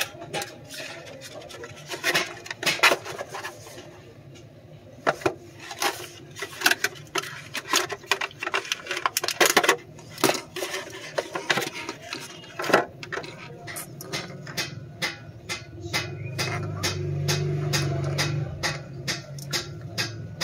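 Irregular clicks, taps and rustles of a 4-USB DC clip charger and its cardboard box and plastic packaging being handled. A low hum comes in for a few seconds near the end.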